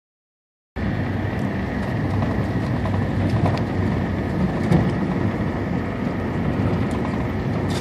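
A vehicle's engine and tyres on a rough dirt and gravel road, heard from inside the vehicle: a steady rumble with scattered small clicks. It begins abruptly under a second in.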